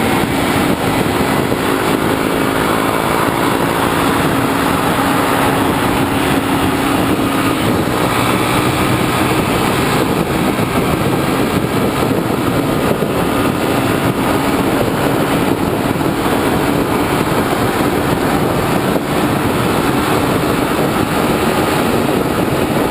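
Motorcycle engine running at highway speed under heavy wind rush over the microphone, steady throughout, with the engine's pitch shifting slightly in the first several seconds.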